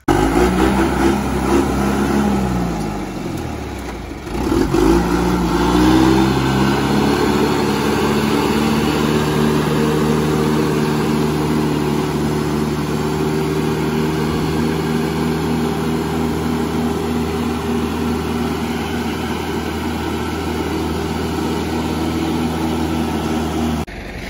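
John Deere 440 skidder's diesel engine running. Its speed drops about three seconds in, revs back up, then holds steady.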